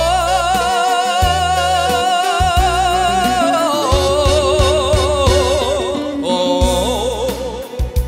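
Male trot singer holding a long high note with vibrato into a handheld microphone over a band backing with bass; about four seconds in the note slides down into a lower, wavering phrase, and another short sung phrase follows near the end.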